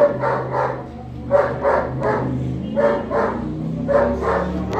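A dog barking repeatedly in quick runs of two to four barks, over a steady low hum.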